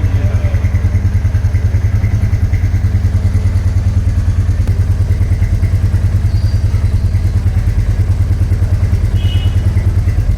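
Royal Enfield Meteor 350's single-cylinder engine idling steadily, with an even low pulse of about seven beats a second.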